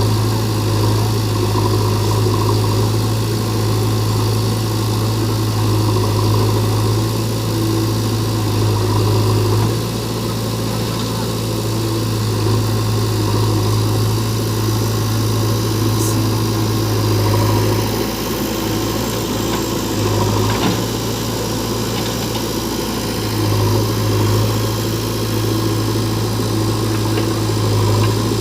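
Diesel engines of a JCB 3DX backhoe loader and a tractor running steadily at a low, even drone. The engine load eases off briefly a couple of times.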